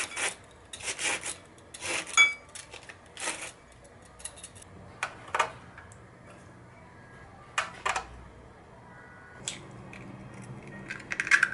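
Cabbage shaved with a hand-held slicer into a glass bowl: a run of crisp scraping strokes, about one or two a second. Later come a few scattered knocks and clicks as shredded carrot goes in and an egg is cracked over the bowl.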